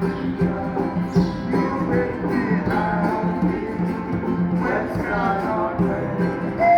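Street band playing an upbeat country-style tune on acoustic guitar and other plucked strings, over a steady low bass pulse with a melody line above.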